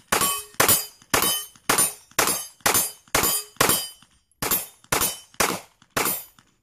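HK VP9 9mm pistol firing a steady string of about a dozen shots, roughly two a second, with a slightly longer gap about four seconds in.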